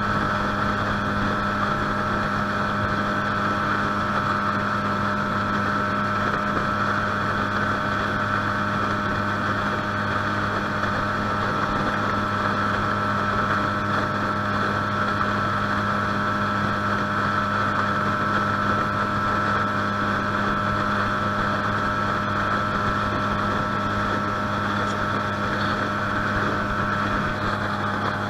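A 20 hp Mercury four-stroke outboard motor running steadily with the boat under way, an even drone that holds the same pitch and level throughout.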